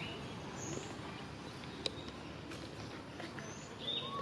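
A few short, high-pitched animal chirps and squeaks over a steady outdoor hiss, with scattered faint clicks.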